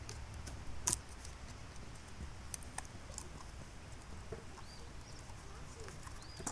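Scattered faint clicks and taps, with one sharper click about a second in, over a low steady hum.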